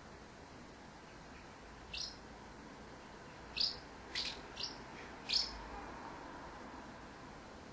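Common house martins chirping: five short, high calls spread over a few seconds, two of them in quick succession in the middle.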